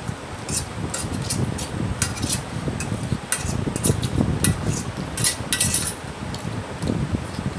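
A metal fork clinking and scraping against a stainless steel plate as noodles are picked up and eaten: a run of short, sharp clinks and scrapes.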